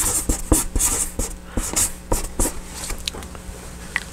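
Marker pen writing on flip-chart paper: quick scratchy strokes that stop about two and a half seconds in.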